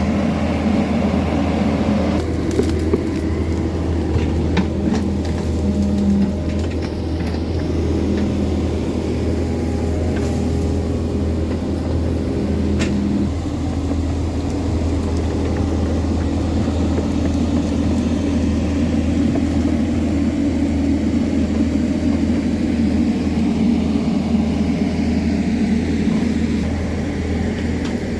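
Hydraulic excavator diesel engine running steadily under load, a continuous low drone, with a few faint clicks.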